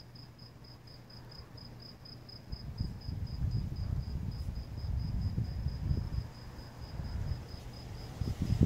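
A cricket chirping steadily, about four high chirps a second. From about two and a half seconds in, a low, uneven rumble rises underneath and becomes the loudest sound.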